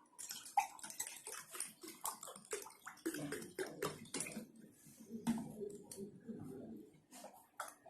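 Carbonated soda (Sprite) poured from a large bottle into a glass, fizzing as a dense, irregular run of crackles, with a fuller splashing sound in the middle.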